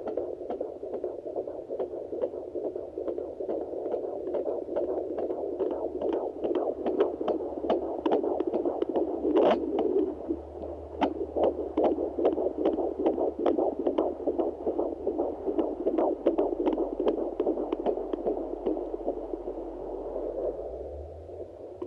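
Fetal heartbeat picked up by a Sonoline B handheld fetal Doppler, heard through its speaker as a fast, rhythmic whooshing pulse. There is one louder crackle about nine and a half seconds in.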